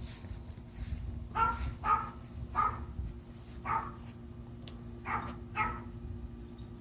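A dog barking, six short barks spaced irregularly over the middle of the few seconds.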